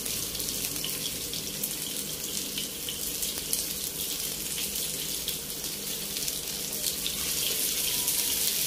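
Chicken kebab balls sizzling steadily in hot oil in a grill pan, with many small crackles and spits.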